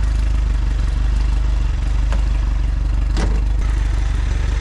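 Mercury outboard motor idling steadily with a regular low throb, just started on a jump from a car after its battery went flat. A single sharp knock about three seconds in, the car's bonnet being shut.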